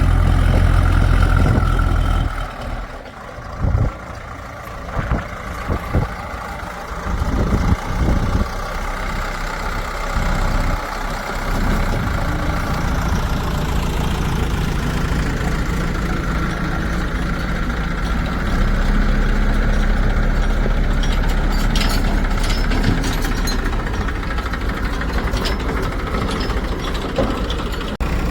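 Heavy diesel engine running: loud at first, it drops away about two seconds in amid a few sharp knocks, then settles into a steady run that grows a little louder about two-thirds of the way through.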